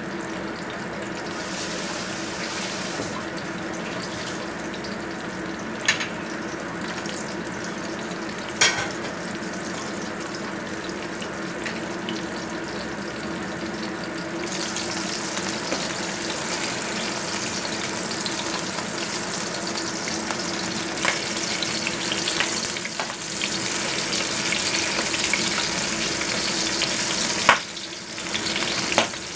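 Fish steaks frying in hot oil in a wok: a steady sizzle that grows louder about halfway through, broken by a few sharp clicks. Near the end a metal spatula knocks into the pan.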